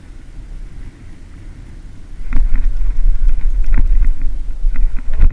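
Wind buffeting the microphone on a boat, a low rumble that gets much louder about two seconds in, with scattered clicks and knocks.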